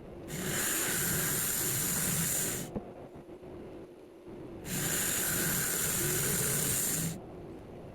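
Two bursts of steady, high hissing, each about two and a half seconds long and each starting and stopping sharply, with a faint click between them.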